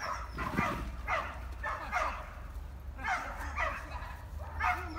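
Small dog barking in quick, high-pitched yaps, a dozen or so in runs of three or four with short pauses between runs.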